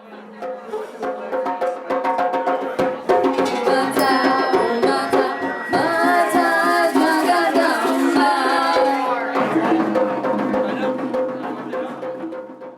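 Music with hand-drum percussion over steady held drone tones, growing louder over the first few seconds and fading out near the end.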